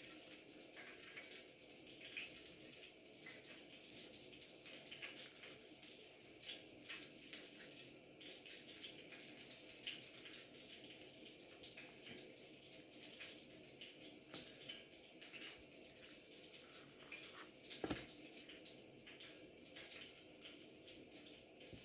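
Near silence with small scattered ticks and clicks from hands handling and flipping raw pork chops on a countertop, over a faint steady hum. One sharper knock about 18 seconds in.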